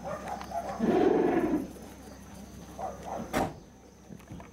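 A sheep gives one short, hoarse bleat about a second in. Near the end there is a single sharp click.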